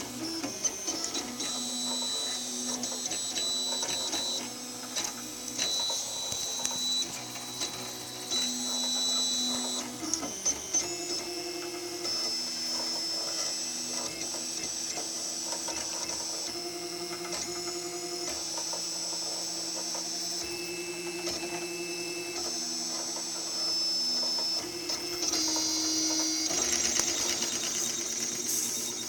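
3D printer's stepper motors whining in steady tones that jump to a new pitch every second or two as the print head moves, with a few clicks along the way.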